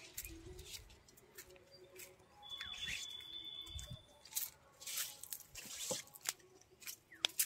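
Guava plant leaves rustling and brushing in a string of short swishes, with a few light clicks. A thin, steady high tone sounds for about a second near the middle.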